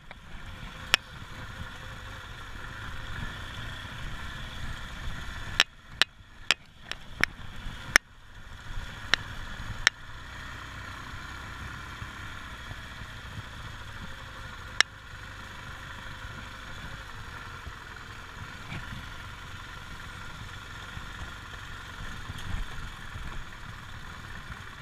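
Motorcycle engine running steadily on a dirt track, with wind and road noise over it. Several sharp clicks or knocks cut through, about a second in, in a cluster from about six to ten seconds in, and once more near fifteen seconds.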